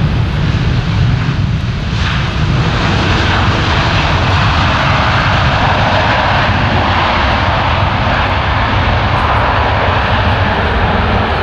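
Loud jet roar from the Airbus A350's two Rolls-Royce Trent XWB turbofans as it rolls out after landing, swelling into a stronger, hissier rush about two seconds in.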